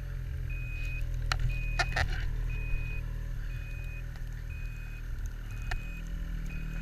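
Ski-Doo 800 snowmobile's two-stroke engine running low and steady, with its reverse-warning beeper sounding about once a second in short, steady-pitched beeps, which signals that reverse is engaged. A few sharp knocks come about one and two seconds in.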